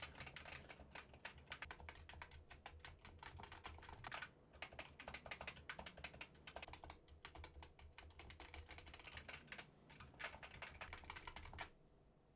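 Faint, fast typing on a computer keyboard, a rapid clatter of keystrokes with short pauses about four seconds in and near ten seconds, stopping shortly before the end. It is picked up by desk microphones as a keyboard-noise test, switching between a Blue Yeti condenser microphone and a RODE PodMic dynamic microphone.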